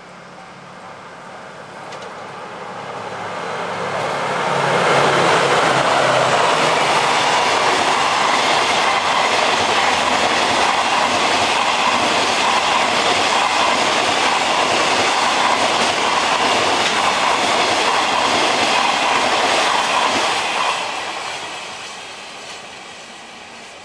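A JR Freight DF200 diesel-electric locomotive approaches with a low engine hum, then its long container freight train passes. The wheels clatter over the rail joints for about fifteen seconds before the sound fades away near the end.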